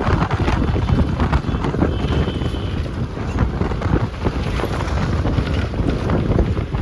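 A moving bus heard from inside: engine and road noise with body rattles, and wind buffeting the microphone through the open window.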